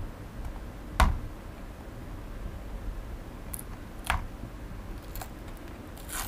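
Plastic clicks and handling sounds as fingertips pry at the side panel of a Xiaomi Mi Drone 4K remote controller, a panel held on with double-sided tape: one sharp click about a second in, a softer one about four seconds in, and a few faint ticks between.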